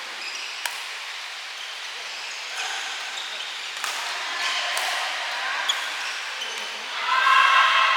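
Steady hiss of heavy rain, with a few sharp cracks of rackets striking the shuttlecock during a badminton rally. Near the end, louder high-pitched squeaking and calls come in.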